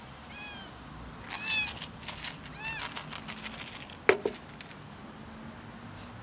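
Domestic cat meowing three times, short meows that rise and fall in pitch, then a sharp clack about four seconds in as a plastic food container is set down on a wooden bench.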